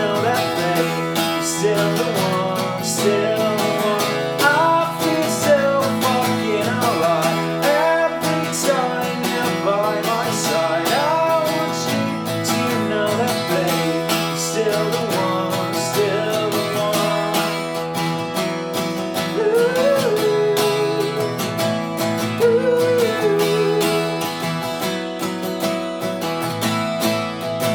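Pop song played on a strummed acoustic guitar, instrumental, with a gliding melody line over the chords.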